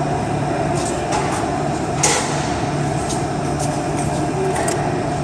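Steady mechanical hum in the shop with a handful of sharp metallic clicks and taps of a wrench working the threaded fitting of a turbocharger oil line, the loudest about two seconds in.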